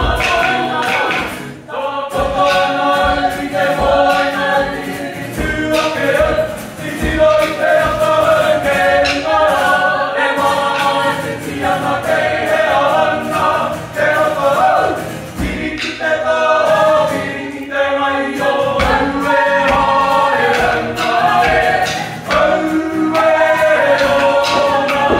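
A Māori performing group singing together in harmony, men's and women's voices, with a steady beat of low knocks under the first several seconds.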